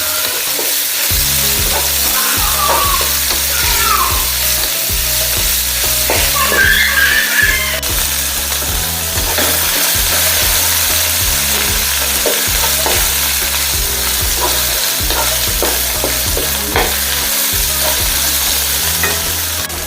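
Spices and aromatics frying in hot oil, a steady loud sizzle, with the short clicks and scrapes of a spatula stirring them in the pan.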